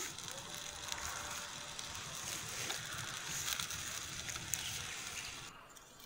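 Small open fire of dry straw and twigs crackling under a pan of broth cooking over it, a steady hiss with scattered small crackles. The hiss drops off abruptly near the end.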